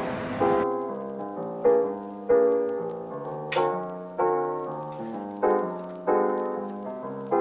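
Background piano music: chords struck at a steady, unhurried pace, each ringing and fading before the next.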